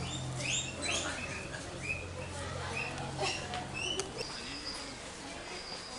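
Repeated short, high chirps from small animals, several a second, over a low hum that fades out about two-thirds of the way through. A thin, steady high tone comes in near the end.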